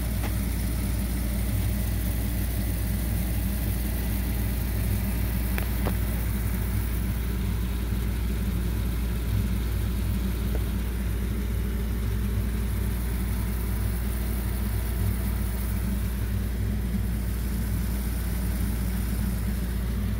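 Steady low machine hum, unchanging throughout, with a faint click or two about six seconds in.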